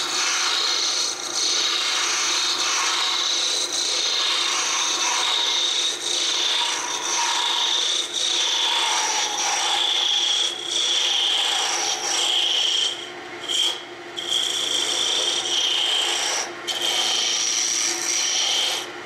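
Hand-held turning gouge cutting a spinning walnut spindle on a wood lathe during rough turning: a loud, continuous rasping cut with a high edge to it, breaking off briefly a few times, mostly about two-thirds through. A faint steady hum from the running lathe sits underneath.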